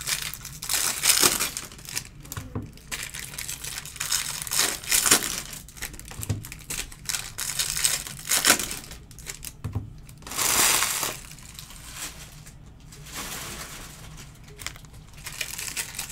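Foil trading-card pack wrappers being crinkled and crumpled by hand, in irregular bursts, with one longer crumple about ten seconds in.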